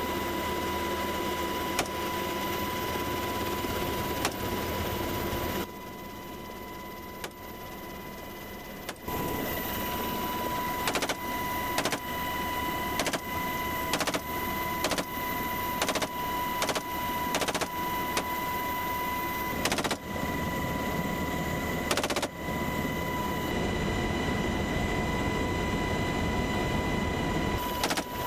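Single rifle shots fired from a helicopter's open door, a string of them roughly one a second through the middle, over the steady noise of the helicopter cabin with a high whine.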